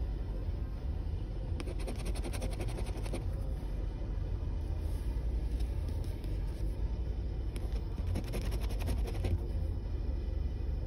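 A copper penny scraping the scratch-off coating from a lottery ticket in two spells of rapid scratching strokes, about two seconds in and again about eight seconds in. A steady low rumble inside the car runs underneath.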